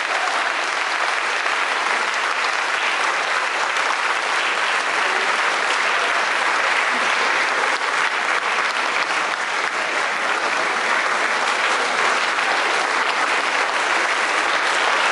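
Large audience applauding steadily: dense, even clapping that holds at the same level throughout.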